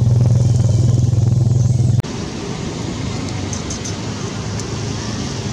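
A motor engine running steadily close by with a low pulsing hum for about two seconds, then cutting off abruptly to a quieter rushing outdoor background with a few faint light clicks.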